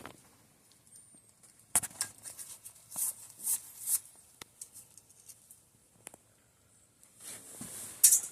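Small metal tools and shock parts clicking and scraping on a workbench during hand disassembly of a Fox DPS rear shock. There are a dozen or so separate sharp clicks and short scratchy handling noises with quiet gaps between them.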